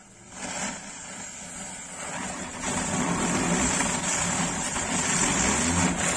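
A matchstick chain flares up, then a ground firework sprays sparks with a steady rushing noise that grows much louder about two and a half seconds in.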